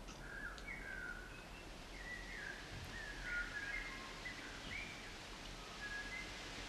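Faint birdsong: a run of short whistled chirps and warbles that glide up and down, over a steady hiss.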